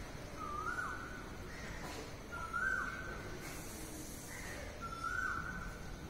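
Cockatiel whistling the same short phrase three times: each phrase rises into a held whistle, then drops away, with fainter higher chirps between them.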